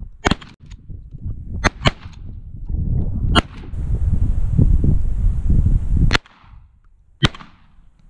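Shotgun reports: about six sharp cracks at irregular intervals, two of them close together about a second and a half in. Wind buffets the microphone underneath and cuts out about six seconds in.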